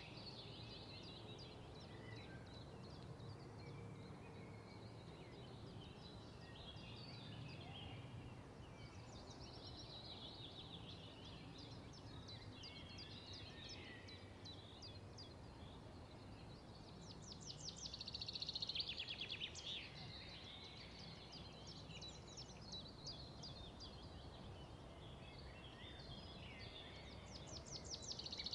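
Songbirds singing, with a fast trill about two-thirds of the way through and another near the end, over a faint steady background hush.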